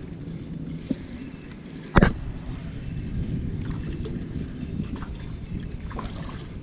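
Spinning reel being cranked to bring in a small fish, which splashes at the surface near the end, over a steady low rumble of wind on the microphone. A sharp knock about two seconds in is the loudest sound.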